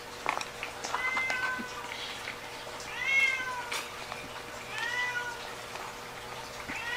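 Domestic cat meowing repeatedly, about four meows roughly two seconds apart, each rising and falling in pitch.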